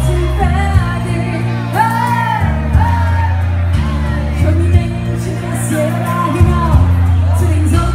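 A woman singing live into a microphone over loud amplified backing music, with a strong bass line that changes note in steps.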